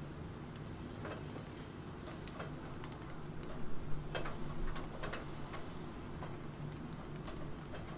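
Computer keyboard typing in scattered, irregular keystrokes, with a short cluster of louder key presses about halfway through, over a steady background of rain.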